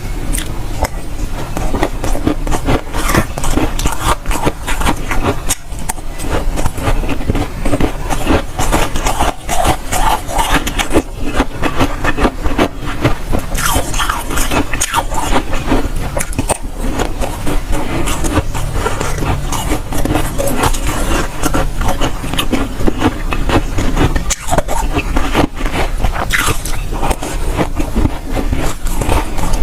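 Dry, soft freezer frost being bitten and chewed close to the microphone: a dense, unbroken crunching crackle.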